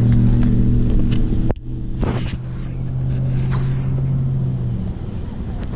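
A steady, low motor hum, engine-like, with wind and handling noise on the microphone. It stops about a second before the end.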